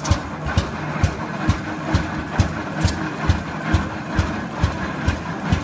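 Advance-Rumely OilPull tractor engine running as the tractor drives, a slow, even exhaust pop about twice a second.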